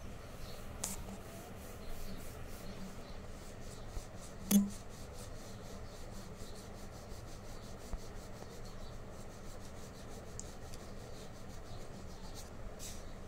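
Graphite pencil scratching on paper in many short sketching strokes, with one loud knock about four and a half seconds in.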